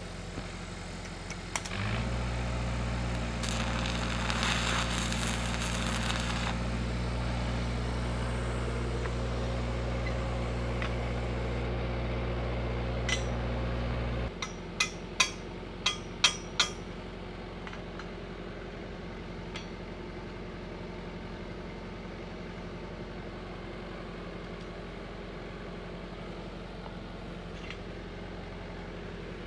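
Stick-welding arc crackling for about three seconds as a tack weld is laid on a steel handrail, over the steady hum of the welding machine, which comes up suddenly about two seconds in and cuts off about fourteen seconds in. After that come a few sharp metallic clinks.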